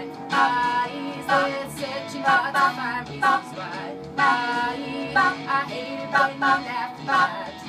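Women singing a song in rehearsal over an instrumental backing, phrase after phrase with short breaks between.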